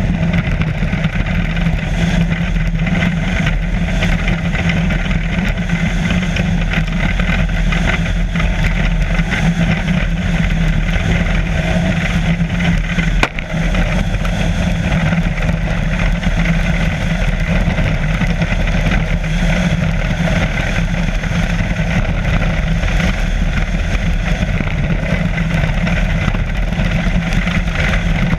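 Bobsleigh runners on the ice track at speed: a loud, steady noise that does not let up, with one brief dip about halfway through.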